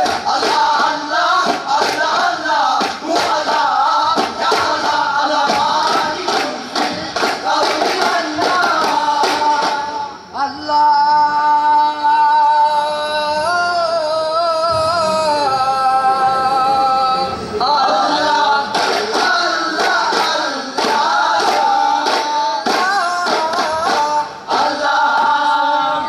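A group of men singing a song in chorus to steady beats on hand-held frame drums (daf). About ten seconds in, the drumming stops for a long, drawn-out sung passage, and the beats return about seven seconds later.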